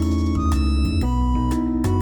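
Background music: an upbeat keyboard and synthesizer tune with a steady bass, notes changing about every half second.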